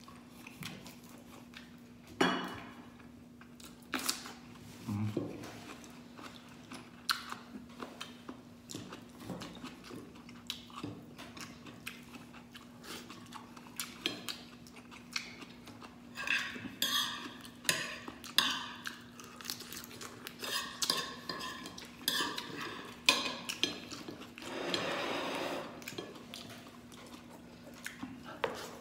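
Clicks and clinks of mud crab shell against a plate as the crab is picked apart by hand, thickest from about halfway in, with occasional chewing.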